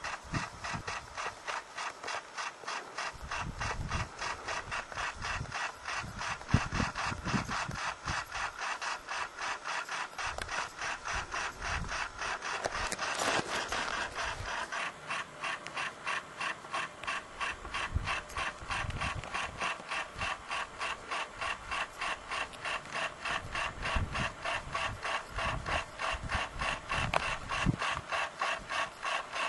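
Fast, even rasping rub of gear or clothing against the camera microphone, repeating several times a second while the wearer hikes steep ground, with occasional low thumps.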